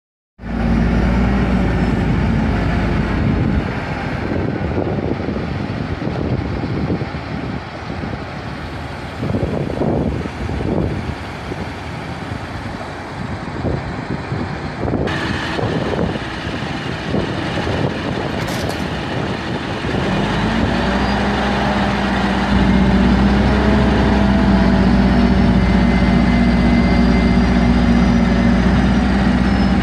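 Diesel engine of a Terex 220-ton mobile crane running steadily. About twenty seconds in it revs up and gets louder, holding a higher steady note as the crane hoists its steel load.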